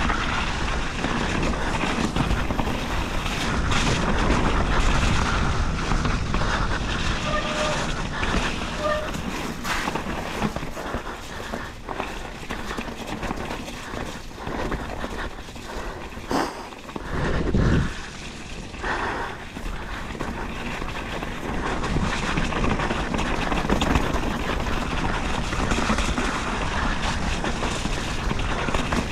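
Mountain bike riding a rough trail: wind rushing over the microphone, with tyre noise and a steady rattle of clicks and knocks from the bike, and a dull thump about seventeen seconds in.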